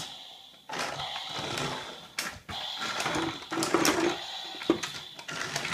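Motorized Thomas the Tank Engine toy running, its small motor and plastic gears whirring and rattling with a steady high whine. The sound dies away at the start and starts again suddenly under a second in.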